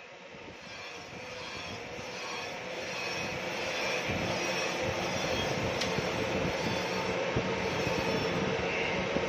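Crankshaft grinding machine's abrasive wheel grinding a steel crankshaft journal: a steady grinding hiss over a faint machine hum, building up over the first few seconds and then holding steady.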